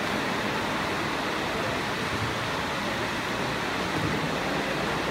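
Steady, even background din of a large sports hall, with no distinct sounds standing out.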